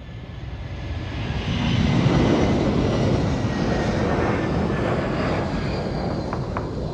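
Jet engines of a C-17 Globemaster III four-engine military transport flying past: a loud rushing sound that swells over the first two seconds and then holds, with a faint steady high whine.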